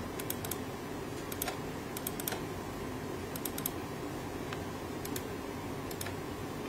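Computer mouse clicking, single and double clicks in small groups every second or so, over a steady low hum.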